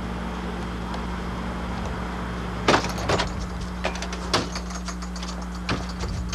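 A metal door clunks open nearly three seconds in, followed by a few scattered knocks and clicks as someone comes through. A steady low hum runs underneath.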